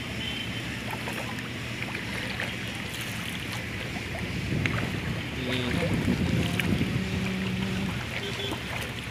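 Wind buffeting the microphone over open water, with water lapping against a small wooden boat. Faint voices come in about halfway through.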